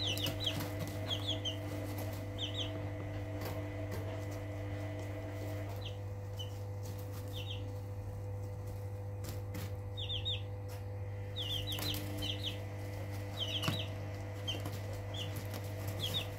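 Three-week-old Barred Plymouth Rock chicks peeping: short, high, falling cheeps in quick runs of two to four, with a lull in the middle. A steady low hum runs underneath.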